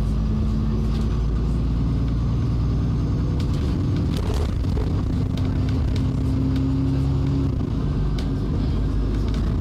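Alexander Dennis Enviro400 double-decker bus heard on board, its engine and Voith four-speed automatic gearbox droning steadily under way. The engine note changes pitch about halfway through, with light rattles over the top.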